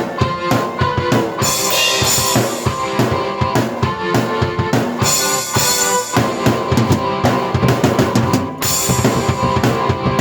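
Drum kit and keyboard played together: a fast, steady beat on bass drum and snare under sustained keyboard notes, with cymbal crashes about a second and a half in, about five seconds in and near the end.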